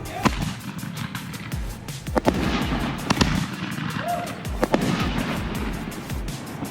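Consumer aerial fireworks going off: several sharp bangs about a second apart, over background music.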